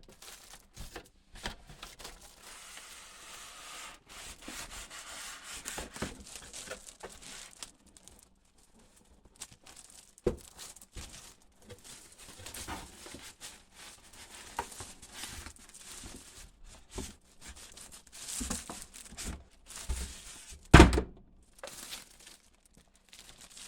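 Cardboard box and packaging rustling and crinkling as the mini fridge is unpacked, with scattered knocks, a thud about halfway through and a louder thud near the end.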